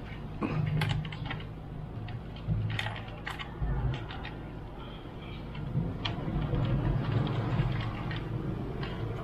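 Handling noise from a foam RC plane fuselage being turned and worked on at its wiring: scattered clicks and taps of foam and plastic, over a steady low rumble that grows louder in the second half.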